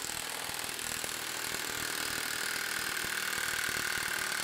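Milwaukee M18 Fuel Gen 3 half-inch cordless impact wrench on a high-output battery, hammering continuously in reverse against a torque-testing rig, its impacts coming in a rapid, unbroken stream.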